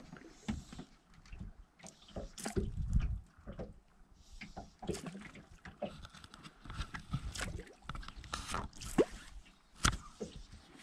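Small waves lapping and sloshing against the hull of a flats skiff, with scattered light knocks and clicks.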